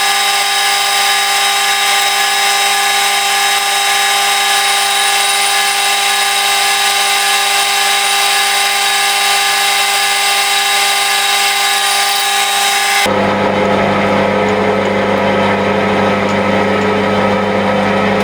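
Metal lathe running while a boring bar bores out the bore of a die grinder part, a steady whine of several fixed pitches. About thirteen seconds in, the high whine stops abruptly and a lower, steady hum goes on.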